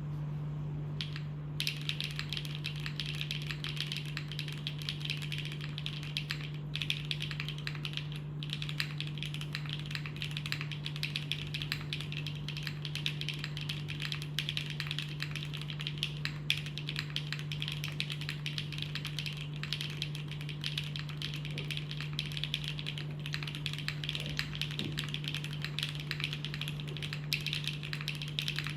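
Continuous fast typing on a Vertex Arc60 plateless mechanical keyboard with lubed Gateron x Swagkeys PureSky switches and GMK Rudy ABS keycaps. The keystrokes start about a second and a half in, with brief pauses near seven and eight seconds.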